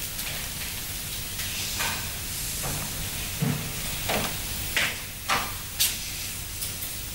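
Footsteps of hard-soled shoes on a wooden floor, a few slow steps about half a second apart, over a steady hiss.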